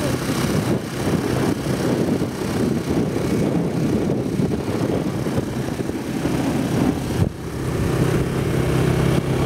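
A vehicle engine running steadily while driving, with a brief dip a little after seven seconds.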